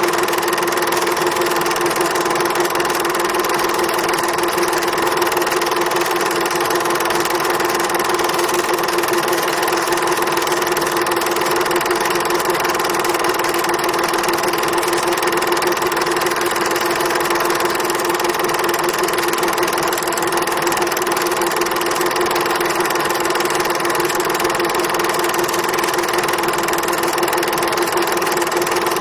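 A steady machine drone at an unchanging pitch with a fine rapid rattle, like a small motor running.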